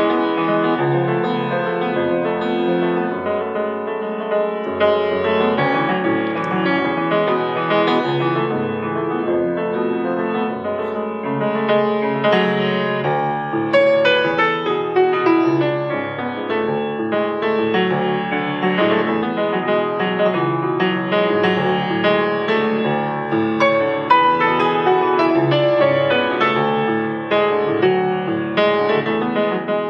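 Instrumental piano music, a steady flow of notes and chords with no singing.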